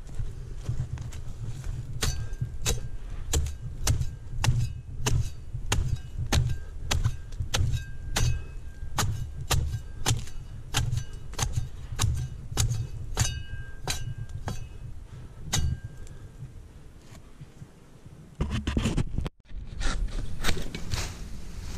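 Metal pruning blade chopping at palm frond bases: sharp strikes about two a second, many with a short metallic ring. The chopping stops after about sixteen seconds and resumes near the end after a brief gap.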